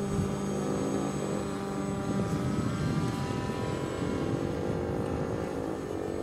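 Fly2K FPV model plane's electric motor and propeller whining in flight, its pitch drifting slowly up and down as the plane passes.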